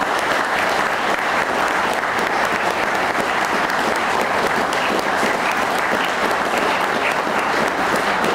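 An audience applauding steadily, many people clapping at once.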